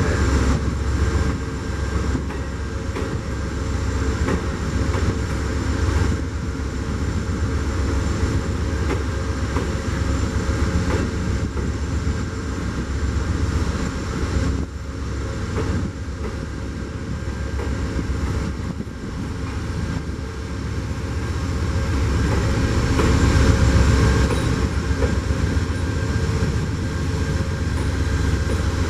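A train running by with a steady low rumble, getting louder about three-quarters of the way through.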